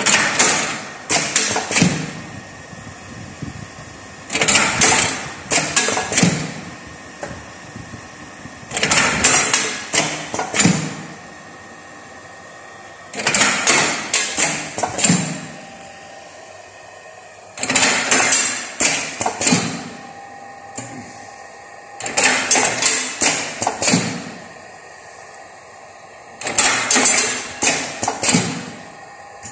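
Automatic lead-bullet casting machine cycling: a two-second run of metal clicks and knocks from its mould mechanism about every four and a half seconds, with a steady hum in between.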